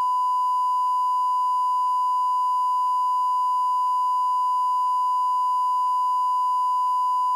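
Steady, loud test tone, the line-up tone that accompanies SMPTE colour bars, with a faint tick about once a second. It cuts off abruptly at the end.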